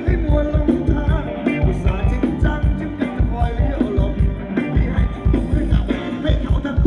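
Live band playing Thai ramwong dance music, with a singer over a steady, driving drum beat.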